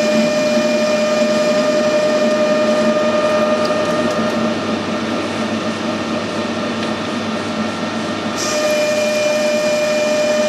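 Metal-working machine tool running with a steady whine over a grinding hum. It dips somewhat from about four seconds in and comes back up at about eight and a half seconds.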